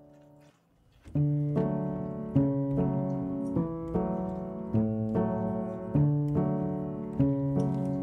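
Background piano music: a held chord fades out, there is a brief pause, and about a second in a gentle piece starts with a steady run of notes.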